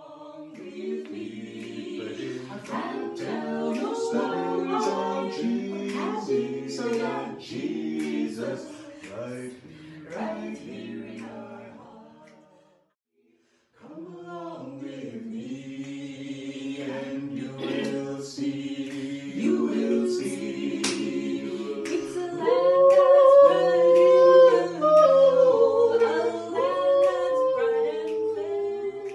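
Mixed-voice a cappella group singing in close harmony, with male voices carrying a low bass line beneath the upper parts. The singing breaks off about 13 seconds in and starts again about a second later.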